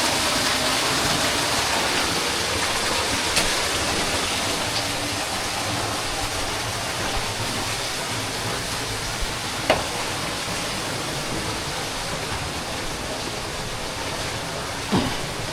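Steady rush of flowing water in a flooded cave, fading slightly over the stretch, with a few sharp knocks about three, ten and fifteen seconds in.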